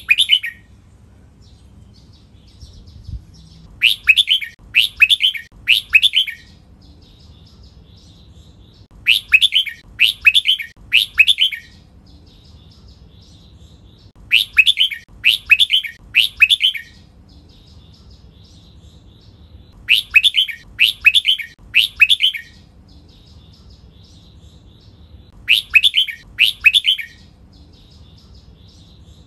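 Red-whiskered bulbul song: loud three-note chirped phrases, each note sliding down in pitch, come in groups about every five and a half seconds. Softer twittering fills the gaps between groups.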